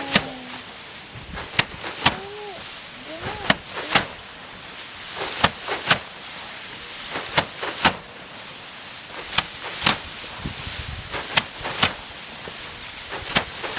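Rice being threshed by hand: cut sheaves of rice stalks slammed against a threshing board or tub to knock the grain loose. They land as sharp whacks, mostly in pairs about every two seconds.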